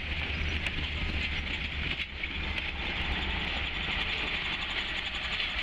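A train rolling along the track: a steady low rumble with a hissing layer and faint scattered clicks.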